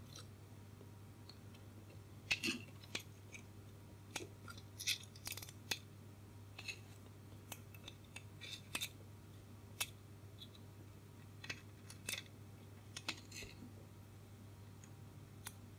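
Small sharp metallic clicks and taps, scattered irregularly, as a four-pin Jones connector socket and its small fixing screws are handled and fitted into a metal chassis panel. A faint steady low hum sits underneath.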